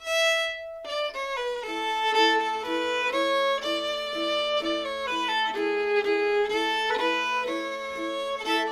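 Old-time string band starting a fiddle tune: a single held fiddle note, then twin fiddles with banjo, guitar and mandolin joining about a second and a half in, over a steady drone and an even, choppy rhythm.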